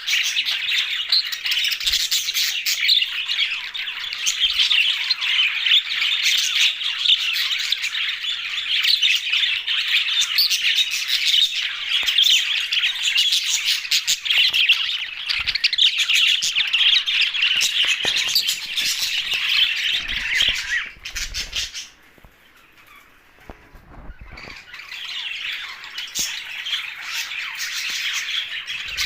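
A flock of English and blue budgerigars chattering and chirping together in a dense, continuous warble. About three-quarters of the way through the chatter drops away suddenly, with a few low bumps, then picks up again more softly before cutting off near the end.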